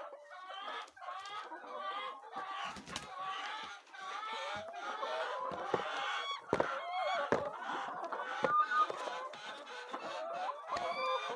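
A flock of laying hens clucking and calling, many voices overlapping, with a few sharp knocks in the middle.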